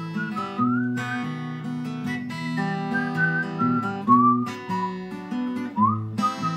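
Acoustic guitar accompaniment playing an instrumental interlude of a song, with a high melody line above it that slides up into some of its notes.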